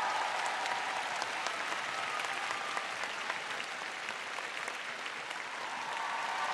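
Large arena audience applauding, a steady sound of many hands clapping.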